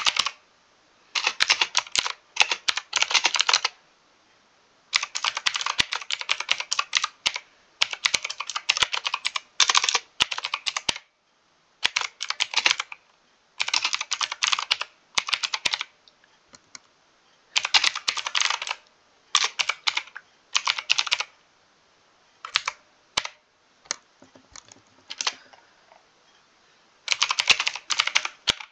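Mechanical keyboard typing in quick runs of keystrokes with short pauses between them; about two-thirds of the way through the typing slows to a few scattered single key presses before picking up again.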